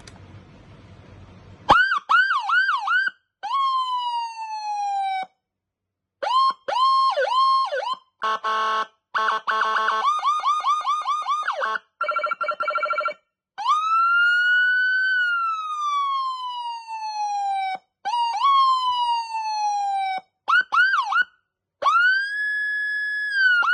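Electronic siren driven by a Whelen M200-style tone chip, cycling through its tone patterns one after another, with brief breaks between them. It plays fast yelping sweeps, long falling wails, rapid pulsing and warbling tones, a slow rise-and-fall wail, and a steady high tone near the end, then goes back to yelping.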